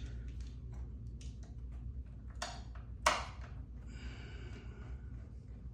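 Small clicks and taps of a screwdriver and loose screws being worked out of a desktop graphics card, with one sharper click about three seconds in and a brief scratchy rasp a second later.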